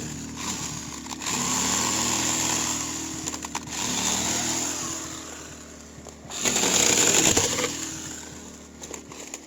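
Electric chainsaw cutting into a tree branch in three bursts, the motor's pitch rising with each run-up; the last burst, about two thirds of the way in, is the loudest.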